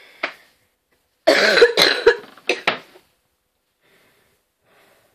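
A boy coughing: a run of loud, rough coughs just over a second in, then two shorter coughs right after.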